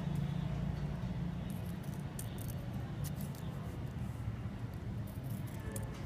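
Steel scissors snipping into a small strip of shiny candy-wrapper foil, a scatter of short crisp snips and crinkles, over a steady low hum.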